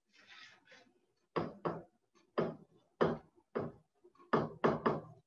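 A run of about nine short knocks from a pen or stylus striking the writing surface as figures are written, starting about a second and a half in, after a brief soft hiss at the start.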